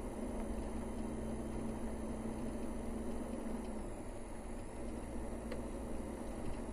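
A car driving on a paved road, heard from inside the cabin: steady engine hum and tyre noise. The hum eases a little about four seconds in.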